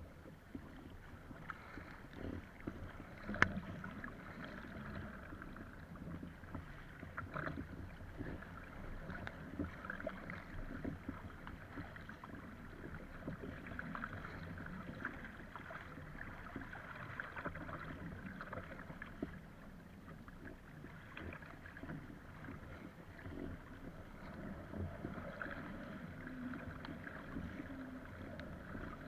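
Choppy water splashing and rushing along the hull of an Epic V7 surfski as it is paddled downwind, with the paddle blades dipping in and throwing spray. A single sharp knock stands out about three seconds in.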